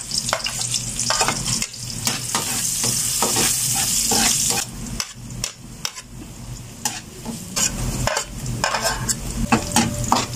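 Chopped onion sizzling in hot oil in a metal wok while a metal spatula scrapes and clicks against the pan to stir it. The sizzle is loudest for a couple of seconds near the middle, then drops back while the spatula clicks go on.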